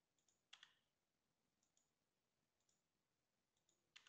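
Near silence broken by a few faint, short clicks, with two slightly louder ones about half a second in and near the end.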